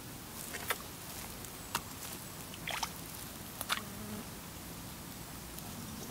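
A small hooked fish, a gudgeon, splashing at the water's surface as it is pulled out on a float rig: a handful of short sharp splashes over about three seconds, then they stop.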